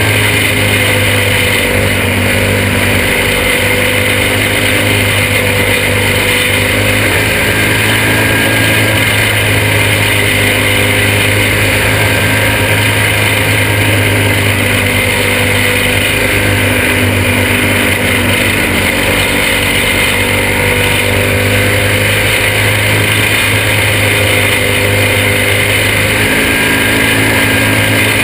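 A small caged race car's engine running at racing speed, heard from on board. Its pitch sags and climbs slightly every few seconds through the corners.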